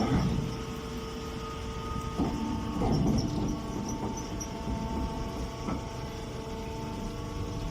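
Machinery running with a steady hum and low rumble, with a few faint knocks a couple of seconds in.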